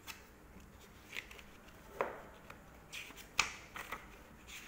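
Passport pages being flipped by hand: several short papery flicks and rustles, the sharpest about three and a half seconds in.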